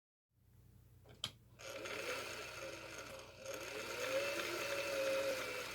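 Singer Touch & Sew 600E steel-geared sewing machine: a click a little over a second in, then the machine running, its speed rising and falling.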